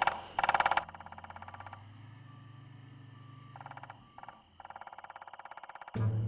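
A woodpecker pecking in rapid drumrolls, fast trains of knocks. Two loud runs come in the first second, then softer runs with short gaps, over a low steady hum. A louder sound starts abruptly near the end.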